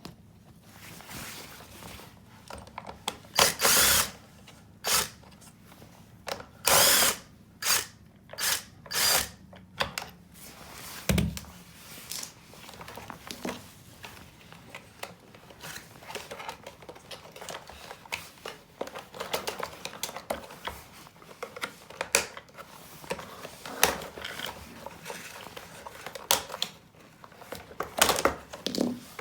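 Handheld power tool, such as a drill or electric screwdriver, run in a string of short bursts through the first third, followed by a thud and scattered clicks and knocks.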